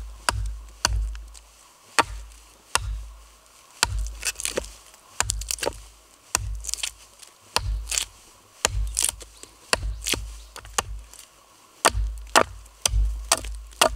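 Hatchet chopping into a green branch braced on a log chopping block, a run of sharp, irregularly spaced strikes as bark and wood are cut away, over a low, regular thumping beat.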